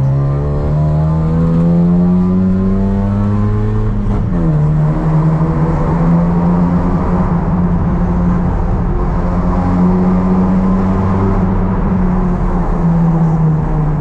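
Corsa GSI 1.6 16V four-cylinder engine heard from inside the cabin, revving up under acceleration for about four seconds. The pitch drops abruptly at an upshift, then climbs slowly again in the next gear and eases off near the end.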